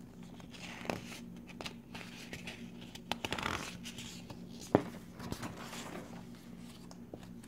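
Coloring book pages being turned and handled: soft paper rustling with a few light taps and ticks. The sharpest tick comes about two-thirds of the way through, over a faint steady low hum.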